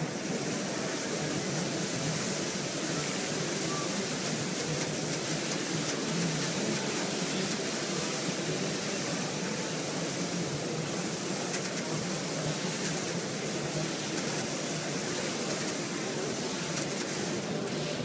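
Steady noise of a busy exhibition hall: an even hiss of ventilation and distant crowd murmur.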